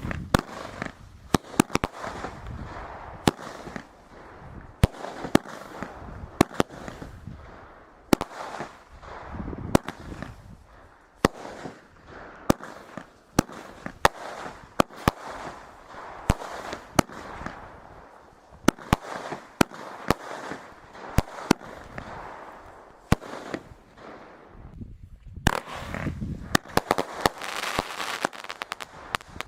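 Consumer firework battery cakes firing shot after shot: sharp bangs about one or two a second, each followed by crackling and hiss from the bursts. Near the end the crackle thickens into a denser volley.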